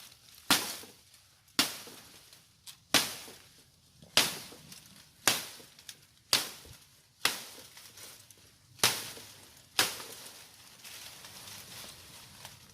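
A series of sharp knocks, about nine of them at roughly one a second, each dying away quickly.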